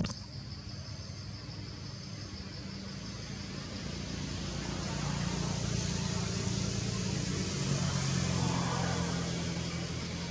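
A motor vehicle's engine hum that swells, loudest about eight seconds in, then eases off. A high pulsing buzz runs over it, and there is a click at the very start.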